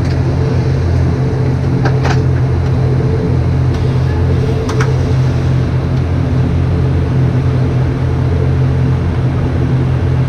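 Steady low drone of an ATR 72's turboprop engines and propellers at taxi power, heard inside the passenger cabin. Two brief clicks, about two seconds and five seconds in.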